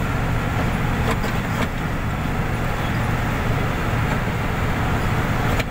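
Steady low engine drone and road and wind noise of a moving vehicle heard from on board, with a few faint clicks.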